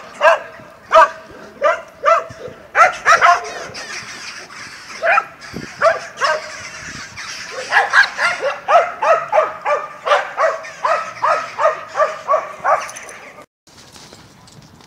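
Dogs barking repeatedly while playing and chasing each other, in quick volleys of sharp barks. The barking stops abruptly near the end.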